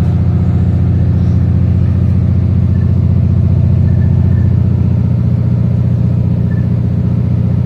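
Inside a moving Adelaide Metro 3000 class diesel railcar: the engine runs at a steady pitch with a loud low hum over the rumble of the running train.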